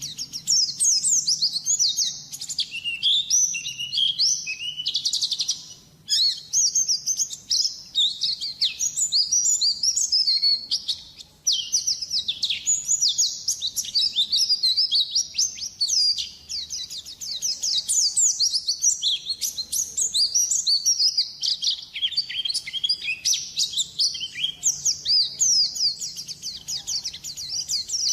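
White-eye (pleci) singing a long, rapid, high twittering song with hardly a pause, breaking off briefly about five seconds and again about eleven seconds in.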